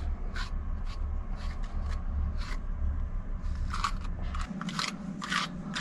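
A comb or brush being drawn through a dog's long, freshly washed fur, giving a series of short scratchy strokes, about two a second.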